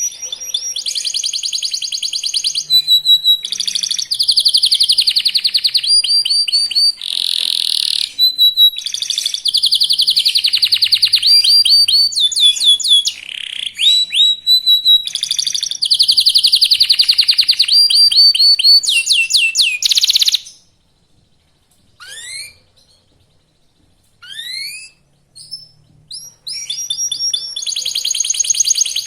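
Young domestic canary singing fast, rolling trills and chirping phrases. About two-thirds of the way through the song breaks off, leaving a few short rising whistles, then the trilling resumes near the end.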